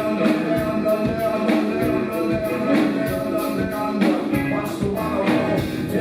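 Live rock band playing, heard in a concert recording. Fast, even cymbal strokes run above a heavier drum hit about every second and a quarter, under sustained held tones.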